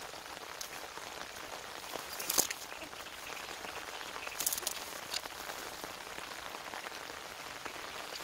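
Steady heavy rain falling, an even hiss, with a couple of short rustling bursts about two and four and a half seconds in.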